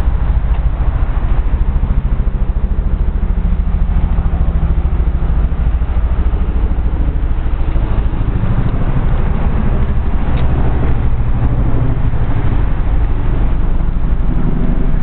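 Wind buffeting the microphone of a handheld camera: a loud, steady low rumble with a constant flutter.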